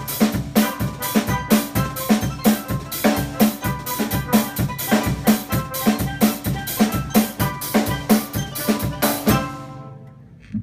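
A live band groove: a drum kit keeps a steady beat under a repeated pitched keyboard part. It stops about nine and a half seconds in, followed by one short hit near the end.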